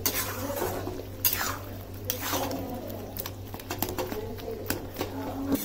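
A spoon stirring thick, simmering tomato sauce in a kadhai, with scattered clicks and scrapes of the spoon against the pan. A steady low hum underneath cuts off near the end.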